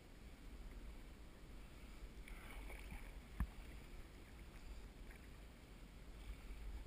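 Canoe paddles dipping and pulling through calm water, with soft water sounds from the strokes. A single sharp knock sounds about three and a half seconds in.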